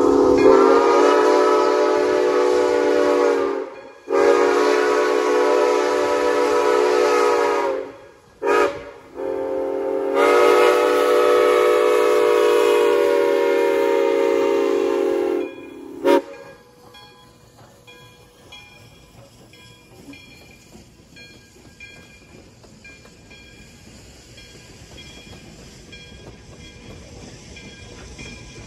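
A locomotive's multi-note chime sounding the grade-crossing signal: two long blasts, a short one, then a long held blast, followed by one brief toot. After that the train runs on much more quietly, with a faint rumble and clicking.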